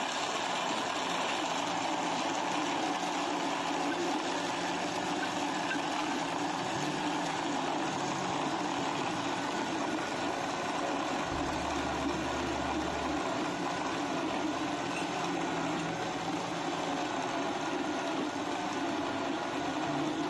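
Countertop electric blender running steadily, blending a fruit smoothie in its jar.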